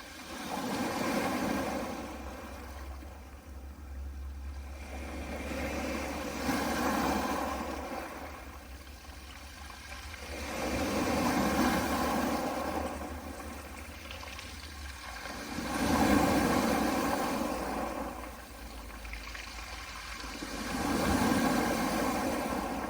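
Small sea waves washing in and out over a pebble beach. Each surge swells and fades about every five seconds, five times over, above a faint steady low rumble.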